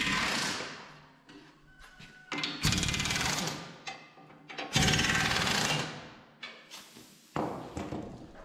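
An impact wrench runs in four short bursts of rapid hammering, each about a second long, as bolts on the tractor's corn-picker mounting brackets are run in.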